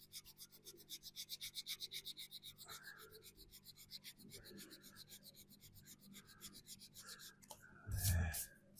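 Fast back-and-forth hand rubbing of primer on a VW T25 van body panel with an abrasive pad, about seven strokes a second, easing off after the first few seconds. A single dull knock comes near the end.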